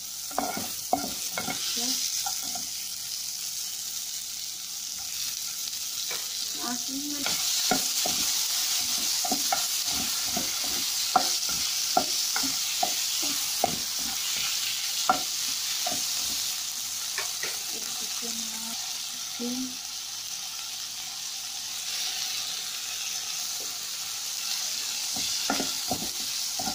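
Onions, tomatoes and chicken sizzling in oil in a nonstick frying pan, a steady hiss, while a utensil stirs them with irregular clicks and scrapes against the pan.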